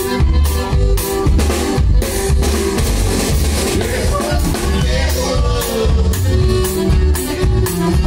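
Live band playing: a drum kit keeping a steady beat, with electric guitars and bass over it, loud and close to the drums.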